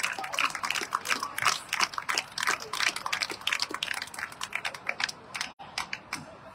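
Hands clapping: a crowd applauding, with many sharp, overlapping claps that thin out and stop near the end.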